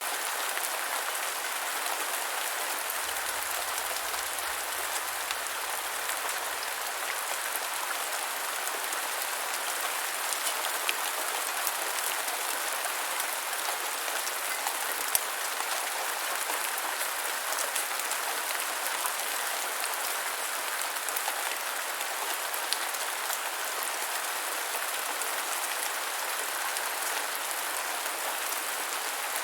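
Light rain falling steadily, an even hiss of many drops with scattered sharper drop ticks.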